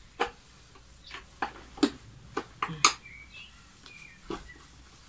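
A screwdriver clicking and knocking against screws and the plastic housing of an ETA Neptun vacuum cleaner: about eight sharp, irregular clicks, the loudest just before three seconds in. Two faint short high chirps come around three and four seconds in.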